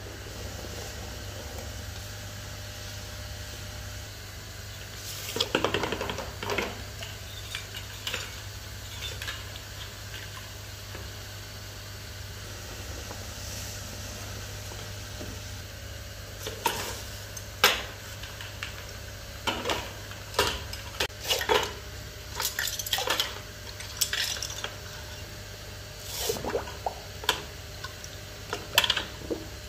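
Steel AK-47 parts clinking and rattling against one another and their metal tray or bucket as they are handled in a liquid bath, over a steady low hum. A few clinks come about five seconds in, then frequent clinks through the second half.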